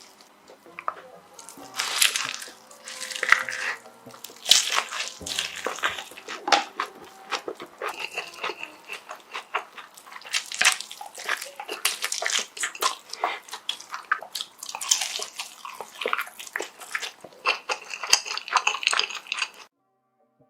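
A person chewing a large mouthful of food close to the microphone: a dense run of wet mouth clicks and smacks, with faint music underneath. The chewing cuts off abruptly near the end.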